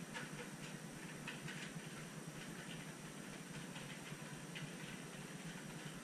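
Budgerigars and lovebirds feeding at their dish: a scattering of faint, short, irregular high clicks from pecking and husking seed, over a steady low background rumble.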